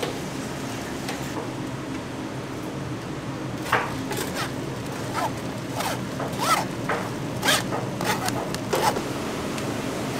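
Metal ladle scraping and knocking against a stainless mesh strainer and steel container while wet minced greens are pressed and scraped out, a string of sharp scrapes starting about four seconds in, over a steady kitchen hum.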